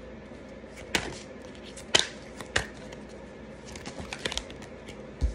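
Tarot cards being handled and laid down: about five sharp clicks and taps, irregularly spaced, against a quiet room.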